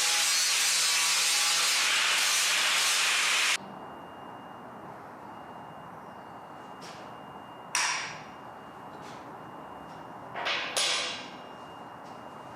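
Steel fabrication work: a loud, steady hissing from a metalworking tool that stops abruptly a few seconds in, followed by two sharp metal clatters.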